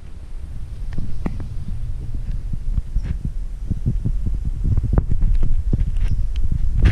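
Wind buffeting and handling noise on an action camera's microphone: a steady low rumble with irregular thumps and knocks.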